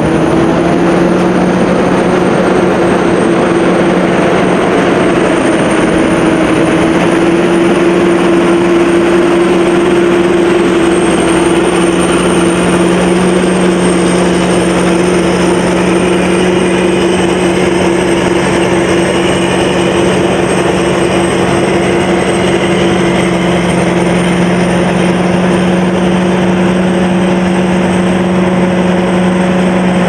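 Sakpattana KM-D No.2 combine harvester, powered by a 220 hp turbo diesel, running steadily under load as it cuts and threshes rice. The sound is an even, loud machine drone with a deep hum and a thin high whine over it.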